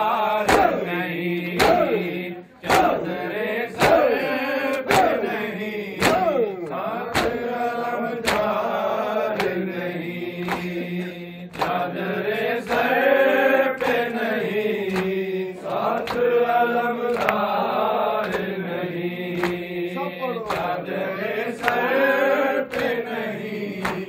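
Men's voices chanting an Urdu noha (mourning lament) together in long held phrases, with rhythmic chest-beating (matam) thumps about once a second.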